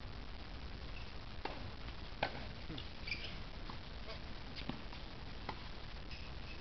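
Tennis rally on an outdoor hard court: a string of sharp pops of ball on racket and court, the loudest about two seconds in, with short sneaker squeaks as the player runs.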